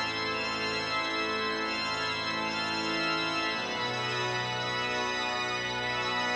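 Music: sustained organ chords held steadily, moving to a new chord a little past halfway.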